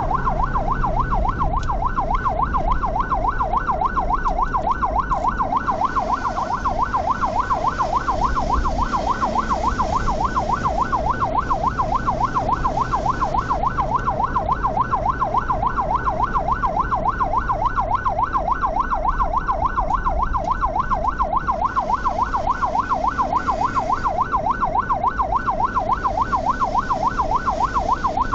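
Ambulance siren in a fast yelp, its pitch sweeping up and down about three to four times a second without a break, over the low rumble of the vehicle's engine and tyres on the road.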